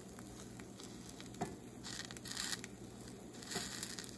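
Pancakes frying in oil in a pan, a faint sizzle, with a few light clicks of a slotted spatula against the pan and a brief louder hiss about two seconds in.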